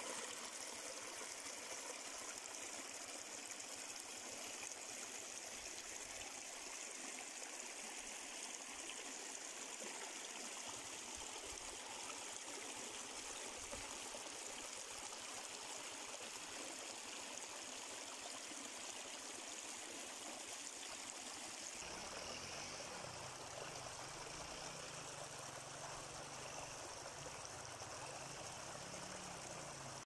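Shallow stream trickling and splashing over rocks, a faint, steady rush of water, with a low rumble added about two-thirds of the way through.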